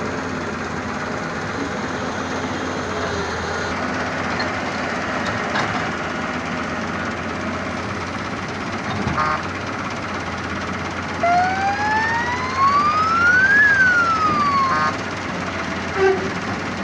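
Steady running noise of heavy machinery, with a siren-like wail near the end that rises in pitch for about two seconds and then falls again.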